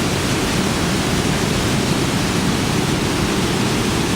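Steady, loud rushing roar of the Khone Phapheng Falls, a very large volume of Mekong River water pouring over the rapids, heaviest in the low end.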